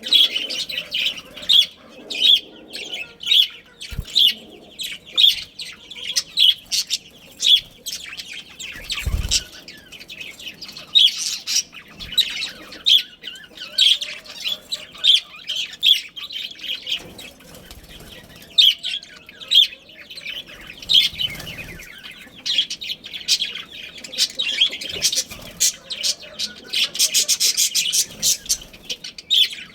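Budgerigars chirping, short high calls repeated several times a second with a fast run of chirps near the end. A soft low thump about nine seconds in.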